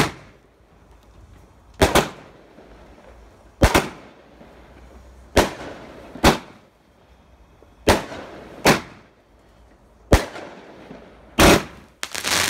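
A multi-shot firework cake firing a run of loud bangs, about nine of them, one every second and a half or two. Near the end the shots come faster and run into a crackle.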